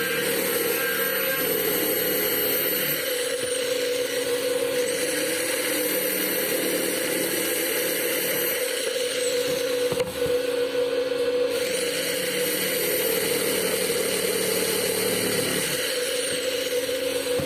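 An electric power tool's motor running steadily under work. A very high whine rises, holds and falls away three times.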